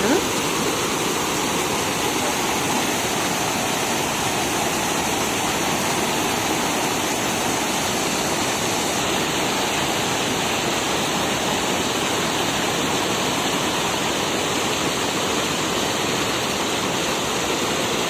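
River water rushing under a bridge: a steady, even sound of fast-flowing water that does not change.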